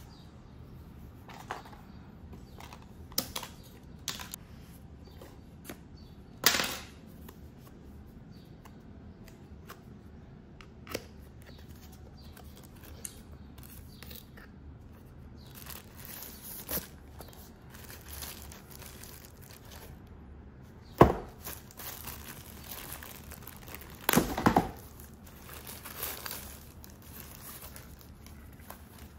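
Hands unpacking packaging: plastic and paper crinkling and tearing, with scattered light clicks and knocks as items are handled. The loudest is a sharp knock about three-quarters of the way through, followed a few seconds later by a brief louder rustle.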